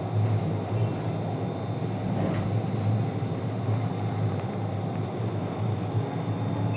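Interior running noise of a tram in motion: a steady low rumble of the motors and wheels on the rails, with a few faint clicks and rattles.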